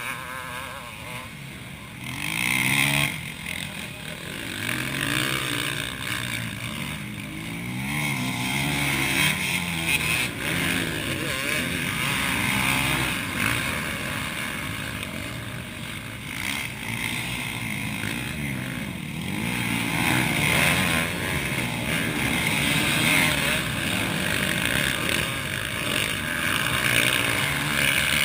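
Motocross bike engines revving hard and easing off as the bikes ride the dirt track, their pitch rising and falling over and over. The sound swells as bikes come closer, about two to three seconds in and again in the last third, when one rides through the corner.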